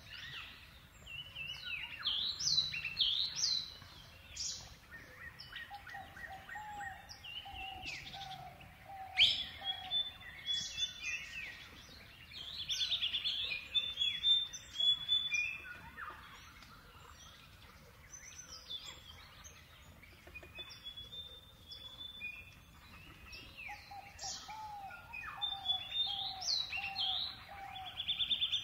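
Several birds chirping and calling: many short, high notes and quick trills overlapping, with a lower run of repeated notes about six seconds in and again about twenty-four seconds in.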